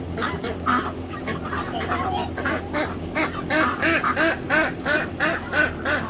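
A flock of domestic ducks quacking, with many short calls overlapping. About halfway through the quacks come in a quicker, steadier run.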